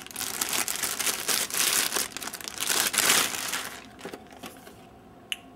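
Clear plastic bag crinkling as a computer DVD drive is slid out of it. The crinkling stops about four seconds in, leaving a quieter stretch with a single light click near the end.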